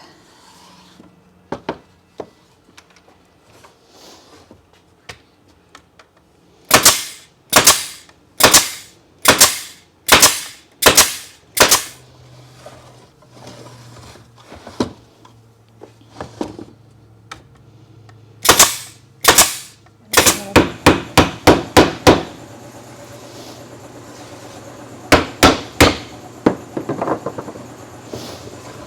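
Staple gun firing staples into wooden beehive frame parts: a series of sharp shots a little under a second apart, then a quick run of about eight shots, then a few more. A steady machine hum comes in about two-thirds of the way through.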